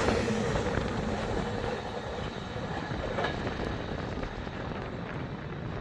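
Freight train wagons rushing past at speed: a steady noise of steel wheels on rail that eases off over the first couple of seconds, then holds steady.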